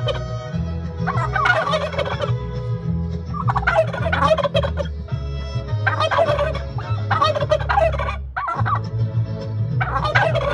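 Bourbon Red domestic turkey toms gobbling about six times in turn, each gobble a short rattling call, in answer to a person singing to them.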